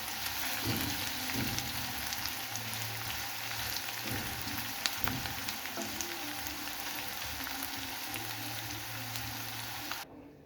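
Food sautéing in hot oil in a pan: a steady sizzle with fine crackles spitting through it. It cuts off abruptly just before the end.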